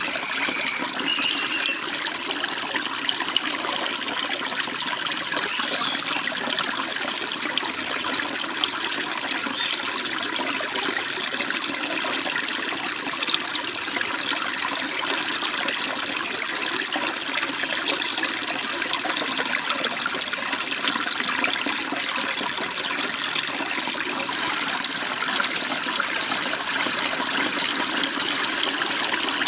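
Stream water rushing and babbling steadily over rocks, with a few brief bird chirps in the first couple of seconds.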